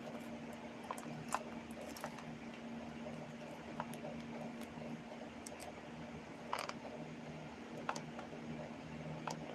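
Scattered light clicks and taps from handling small parts or tools, a second or more apart, over a steady low electrical hum.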